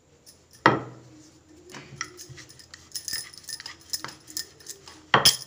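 Wooden rolling pin working a thick round of wheat dough on a stone worktop. There are two louder knocks, about a second in and near the end, with lighter clicks and clinks between.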